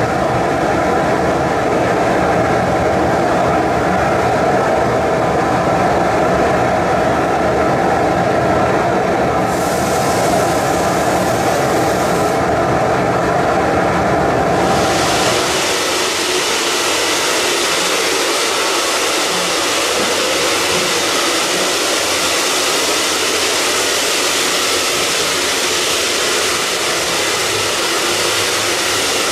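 Steam locomotive C16 106 blowing off steam with a loud, steady rushing hiss. About halfway through, the sound turns to a higher, thinner hiss with less rumble underneath.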